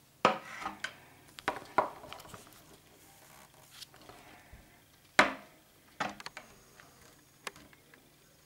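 Hard plastic cube pieces and small tools handled on a wooden tabletop: scattered sharp clicks and knocks with some rubbing between them, the loudest about five seconds in.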